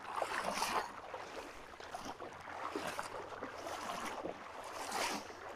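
Ocean surf washing in steady noise, swelling louder briefly near the start and again about five seconds in, with some wind on the microphone.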